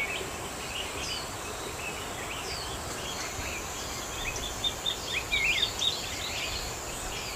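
Small birds chirping in quick short calls, busier about halfway through, over a steady high insect drone and outdoor background noise.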